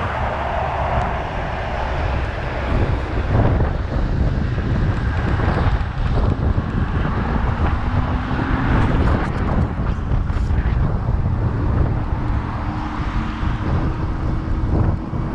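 Wind buffeting the microphone of an action camera mounted on an electric fat bike while it is being ridden, with a rough, uneven low rumble from the ride.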